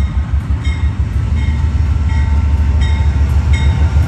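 GE Genesis diesel locomotive pulling out, its engine running with a deep, pulsing rumble that slowly grows louder. A bell dings steadily over it, about two and a half times a second.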